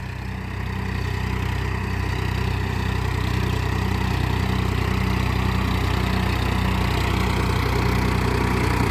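Swaraj 963 FE tractor's three-cylinder diesel engine running steadily while it pulls a land leveller across soil, growing gradually louder as the tractor comes closer.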